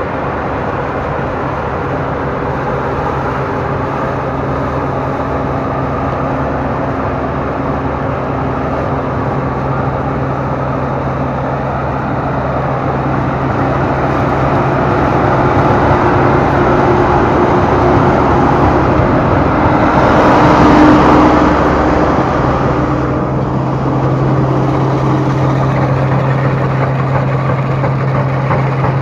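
Rice combine harvester running: a steady engine drone under a dense clatter of machinery. It grows louder through the middle and is loudest about two-thirds of the way through.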